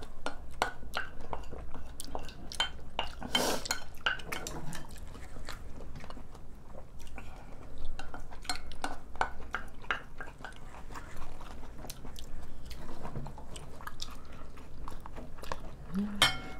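Close-miked eating: chewing mixed with spoons and chopsticks clinking and tapping on ceramic bowls, many small clicks with a few sharper clinks standing out.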